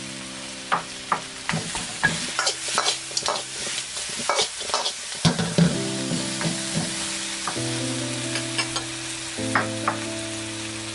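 Chicken wings sizzling in a hot wok while a spatula stirs and tosses them, clacking and scraping against the wok many times over a steady frying hiss.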